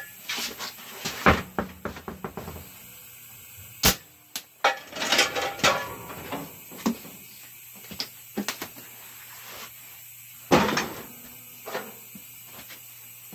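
Scattered knocks and thumps of a mounted tire and wheel being lifted off a bubble balancer and set down on a concrete floor, the loudest about a second in and again near ten and a half seconds.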